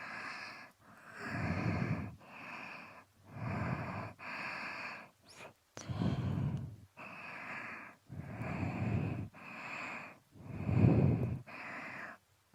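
Slow, close breathing into a binaural microphone at the ear: about a dozen soft breaths in and out, every other one deeper and heavier, with short silent gaps between.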